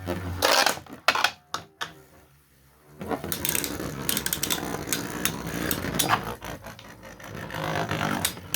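Beyblade spinning tops in a plastic stadium: a few sharp knocks as they collide in the first two seconds, then from about three seconds in a steady, fast rattle of the tops spinning and grinding against each other and the bowl.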